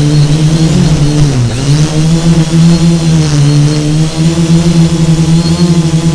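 FPV quadcopter's electric motors and propellers running, heard from its onboard camera: a loud, steady buzzing hum whose pitch dips briefly about a second and a half in, then comes back up.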